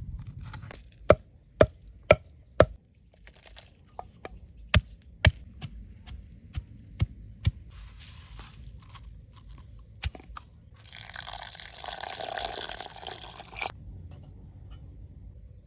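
Knife chopping on a cutting board in sharp, separate strokes: a quick run of four, then scattered single chops. In the last third comes a rushing, hissing noise lasting about three seconds.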